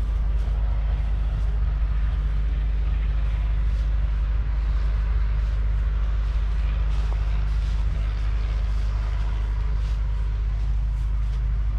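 Nuffield 4/60 tractor's 3.8-litre four-cylinder diesel engine idling steadily.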